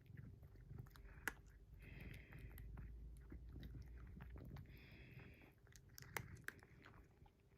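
Cats playing with toys, heard faintly: scattered light clicks and rustles, with a soft breathy sound recurring about every three seconds.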